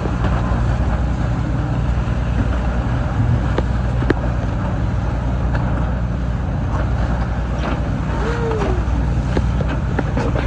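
A catamaran's engine running at a steady low drone under the rush of wind and water, with a few faint clicks.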